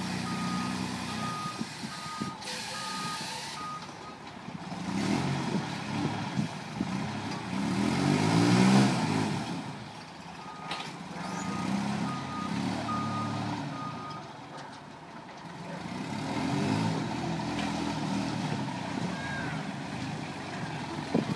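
Forklift engine running and repeatedly revving up and easing off as it moves a storage container, loudest about nine seconds in. Its backup alarm beeps steadily, about two beeps a second, for the first few seconds and again from about ten to fourteen seconds in.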